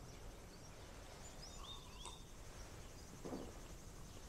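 Quiet background ambience with a few faint bird chirps about halfway through and a brief soft noise near the end.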